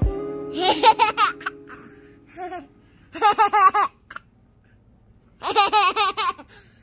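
A toddler girl laughing in three bursts of quick, high-pitched giggles a couple of seconds apart.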